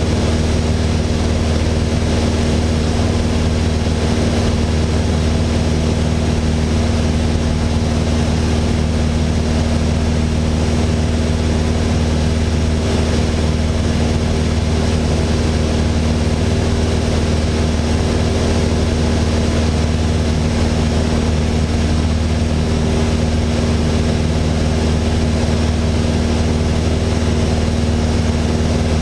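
Mooney M20J's four-cylinder Lycoming IO-360 engine and propeller running at steady power in flight, heard from inside the cabin as a loud, even drone with airflow noise over it.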